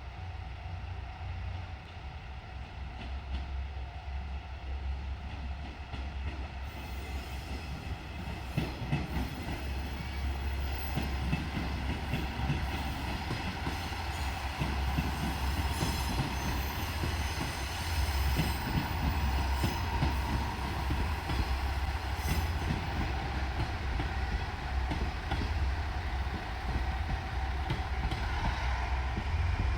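JR Shikoku diesel multiple unit running past on the line, its diesel engine rumbling low under steady tones, with wheels clacking over rail joints and squealing. High-pitched squeal and clicking come in about a quarter of the way through, and the train grows gradually louder.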